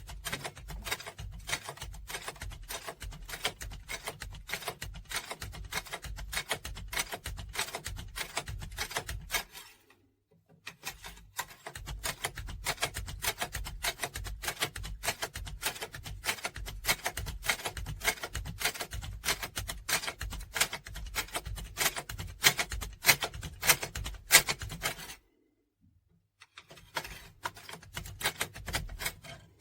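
Metal lock pick being worked inside an Elbor Lazurit 4×4 lever lock: rapid, irregular metallic clicking and scraping as the levers are set. It stops briefly about ten seconds in and again a few seconds before the end.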